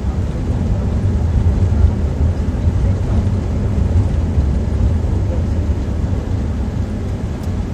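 Engine and road noise of a moving car, heard inside its cabin: a steady low rumble.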